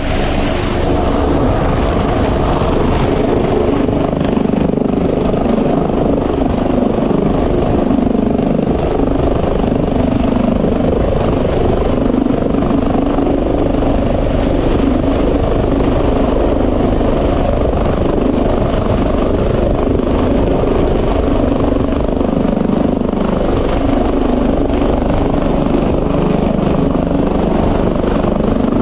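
Helicopter hovering at close range, its rotor and engine noise a loud, steady din with a slow pulsing throb.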